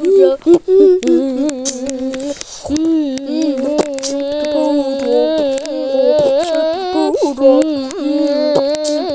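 Music track with a voice holding long, wavering sung or hummed notes, with a brief break about two and a half seconds in, over sharp clicking percussion.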